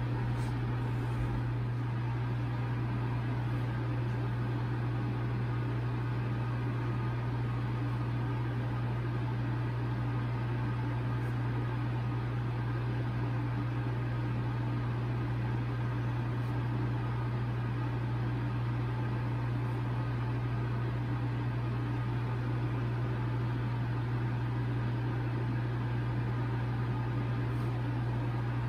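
A steady low mechanical hum with a faint even hiss over it.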